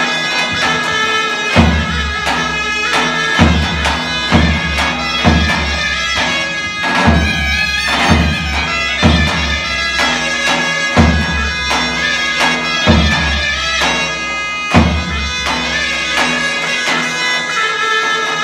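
Two zurnas play, one carrying the shrill reedy melody over the other's held drone. A davul keeps the slow zeybek rhythm under them, with a heavy stroke about every two seconds and lighter beats in between.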